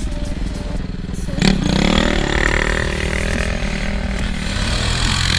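Small off-road vehicle engine running and revving, with a sharp click about a second and a half in, after which the revs rise and then level off.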